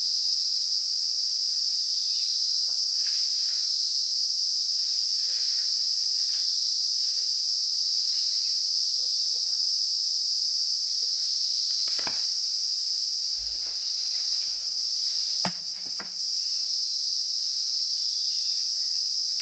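A steady, high-pitched chirring of crickets, with a few faint clicks about twelve seconds in and twice around fifteen to sixteen seconds in.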